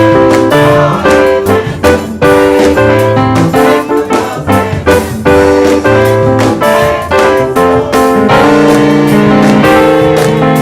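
Instrumental gospel music led by keyboard chords, with regular percussive hits underneath.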